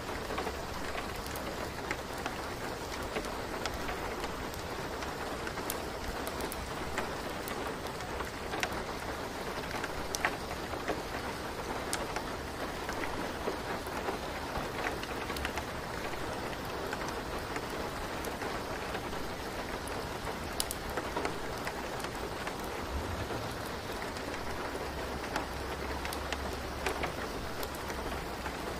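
Steady rain falling, a dense even hiss with scattered sharp drop clicks, and a low rumble near the end.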